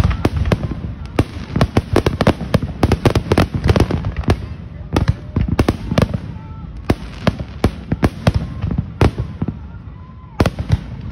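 Fireworks display: aerial shells bursting in many sharp bangs in quick succession, densest over the first several seconds, then thinning out with a brief lull near the end before more bangs.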